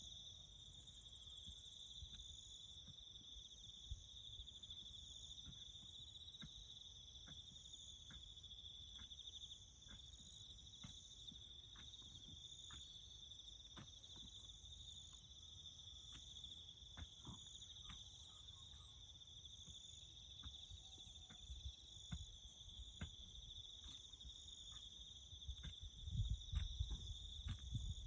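Crickets chirping in a steady, faint, high trill, with scattered light ticks and low rumbling thumps that get louder near the end.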